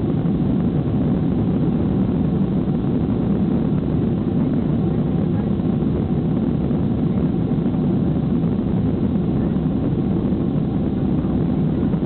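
Boeing 767-300ER's twin jet engines and airframe noise heard from inside the passenger cabin as the airliner rolls along the runway. The rumble and roar stay steady throughout.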